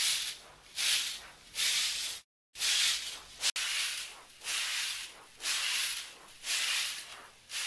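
A broom sweeping the ground in steady swishing strokes, about one a second, with a brief silent gap about two seconds in.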